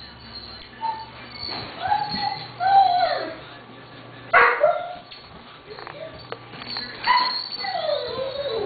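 Six-week-old Doberman pinscher puppies whining and yipping, with two sharper yelps about four and a half and seven seconds in and a long whine that falls in pitch near the end.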